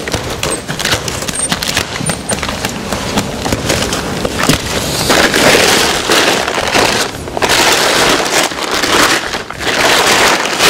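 Plastic wrapping of a compressed clothing bale crinkling and crackling as it is cut and torn open, with sharp clicks at first and louder stretches of rustling from about five seconds in.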